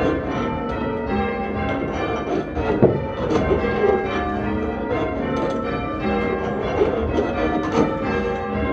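A ring of five church bells in full-circle change ringing, rung in Doubles: a steady, rapid stream of overlapping bell strikes with no gaps, one strike about three seconds in standing out louder than the rest.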